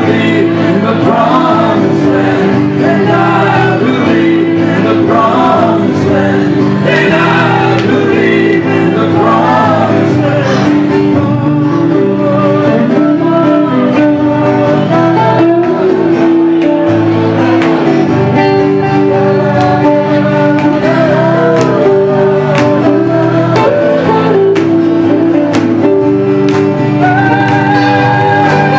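Live rock band playing: male voices singing together over electric and acoustic guitars with a steady beat. After about eleven seconds the singing drops away and the instruments carry on, with a long held high note near the end.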